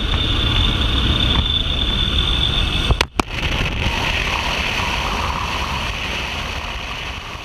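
Steady drone of a small jump plane's engine and slipstream inside the cabin, broken by a brief gap about three seconds in. After that comes a steady rush of wind through the open jump door, fading gradually toward the end.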